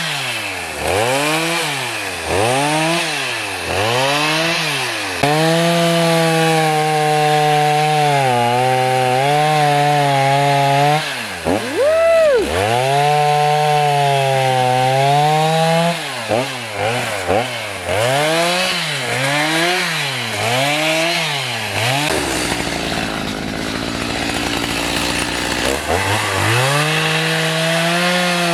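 Gas chainsaw engine revved up and down over and over, about once a second, and held at high revs for several seconds at a time. Near the end its note drops into a rough, noisy sound for about four seconds, as when the chain bites into wood, then it revs up again.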